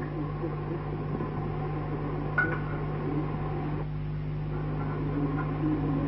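Steady low electrical hum under a faint murmur, with one brief higher sound about two and a half seconds in.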